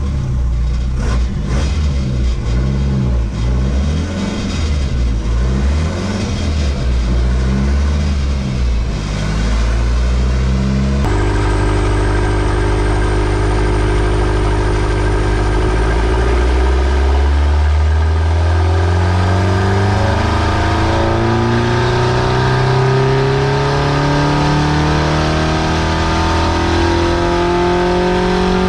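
Ford Escort engine running on a rolling-road dyno during a power run: for the first part the revs waver up and down unevenly, then after an abrupt change about halfway through the note holds steady and then climbs steadily in pitch as the engine pulls up through its revs under load.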